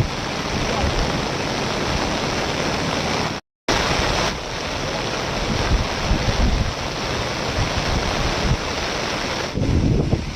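Rushing floodwater, a loud steady roar of noise. It cuts out for a moment about three and a half seconds in, then carries on.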